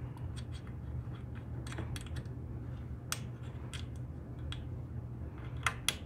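Light, irregular metal clicks and ticks of small machine screws and a stake pocket being handled and threaded by hand into an aluminum car side, over a steady low hum. Two sharper clicks come just before the end.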